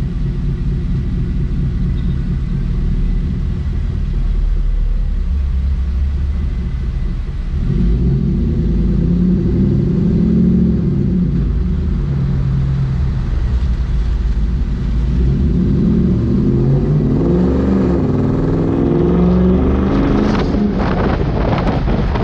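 Heavy wind buffeting on a GoPro camera's microphone, a loud low rumble. From about eight seconds a droning tone rises and falls underneath, and near the end the buffeting turns harsher and gustier.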